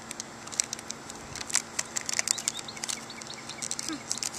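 Thin plastic bottle crinkling and clicking under the fingers as tape is pressed around its cut rim: quick, irregular crackles.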